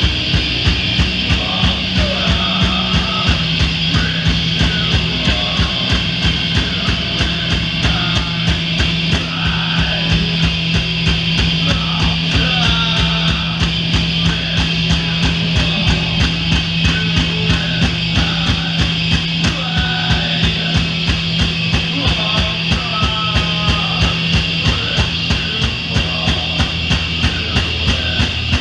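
Doom metal band playing live: long held low guitar and bass notes over a steady drumbeat, the chord shifting lower a few seconds in.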